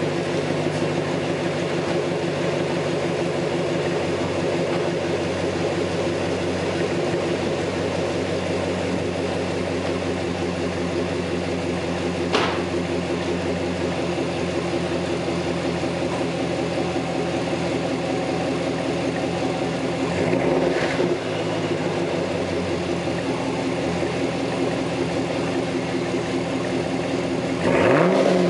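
2013 Camaro SS 6.2-litre V8 idling steadily through a muffler-delete exhaust with the resonators still on, heard from behind the car in a garage. A short blip of the throttle comes about two-thirds of the way through, and a louder rev starts near the end.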